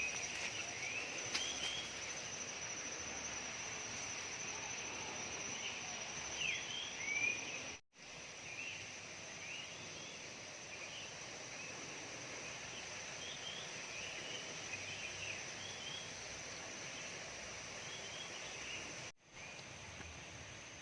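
Outdoor ambience: many short, high, rising chirping calls scattered throughout over a steady background hiss and a thin steady high whine. The sound cuts out briefly twice, about 8 seconds in and near the end.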